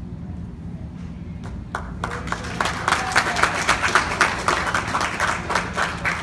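Audience applauding, beginning about two seconds in and continuing, over a steady low hum.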